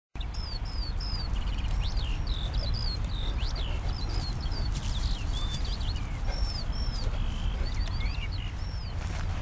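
Small songbirds singing: many quick chirps and short slurred whistles repeated over and over, above a steady low rumble.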